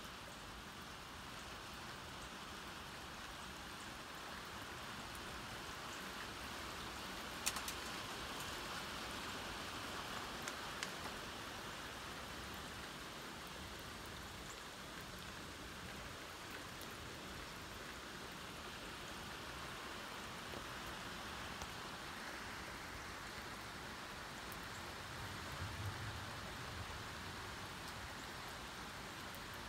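Steady rain falling and pattering on a wet deck, with a few short sharp ticks about seven and a half and eleven seconds in.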